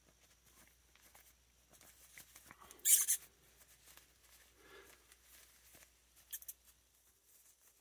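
Close handling of an action figure: its cloth jacket rustling and scraping against the plastic as it is worked on, in faint scattered touches, with a sharp scratchy rustle about three seconds in and a shorter one around six seconds in.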